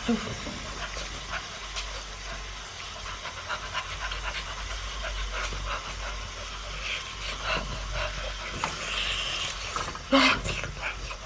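A person eating seafood close to the microphone: wet chewing and sucking mouth sounds with small clicks and breaths, and a short louder burst near the end.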